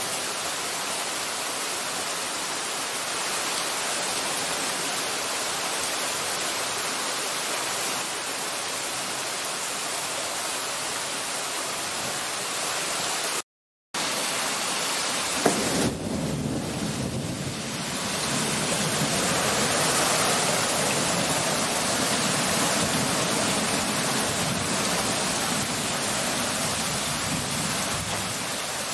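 Torrential rain pouring steadily onto a flooded street. The sound cuts out briefly just before halfway; soon after, a sharp crack is followed by a deeper rumble under the rain.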